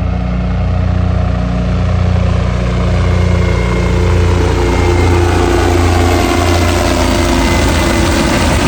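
Light propeller airplane's engine running close by, a loud steady drone with a deep, even hum that carries all the way through.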